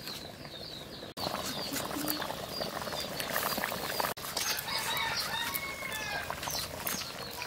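Birds chirping repeatedly in short high calls. About a second in, the steady bubbling hiss of curry boiling in an iron pan comes in, then cuts off near four seconds, and a few light clicks follow.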